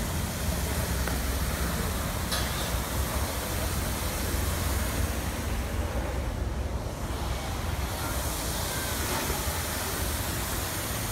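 Steady rushing splash of a tall fountain jet falling into its pool, over a low rumble of wind on the microphone. The higher hiss thins for a moment a little past the middle.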